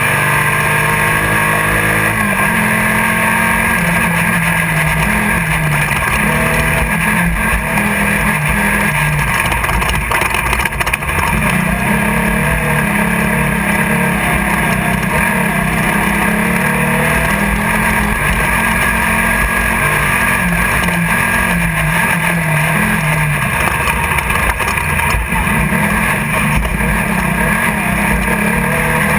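A 1600-class off-road race buggy's engine running hard, heard from inside the car. It climbs in pitch over the first couple of seconds as it accelerates, then rises and falls with the throttle over a steady hiss.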